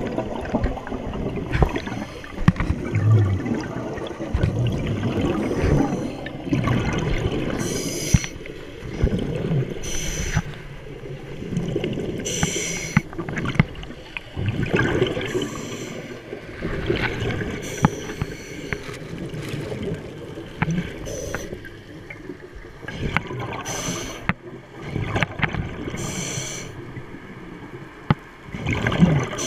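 Water heard underwater, gurgling and sloshing, with short hissing bursts of bubbles every few seconds and scattered knocks and clicks.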